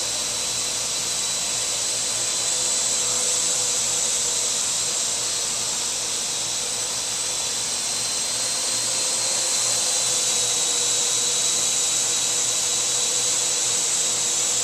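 Parrot quadcopter drone's electric rotors whining steadily in flight, a high even hum with a hiss, with a slight change in pitch about two-thirds of the way in.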